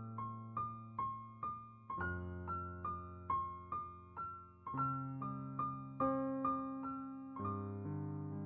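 Background piano music: a gentle melody of single struck notes, about two a second, over lower notes that change every few seconds.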